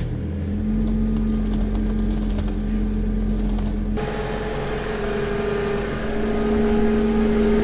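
Engine of the vehicle carrying a crated machine on its forks, running steadily as it moves the load slowly, with a low rumble and a steady hum. About four seconds in, the sound turns brighter and a higher hum joins.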